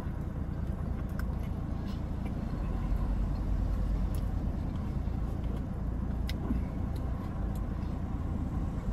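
Steady low rumble of a car, heard from inside the cabin, with a few faint clicks of chewing over it.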